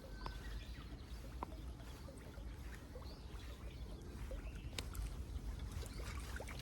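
Quiet on-the-water sound from a fishing kayak: a steady low rumble with scattered faint ticks and small knocks, and one sharp click about five seconds in.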